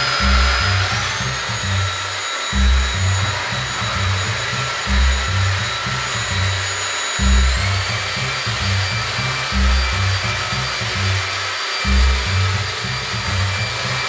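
BUTURE JR700 cordless stick vacuum cleaner running while vacuuming: a steady rushing hiss with a high motor whine that steps up in pitch about a second in and again about halfway through. Background music with a steady low beat plays underneath.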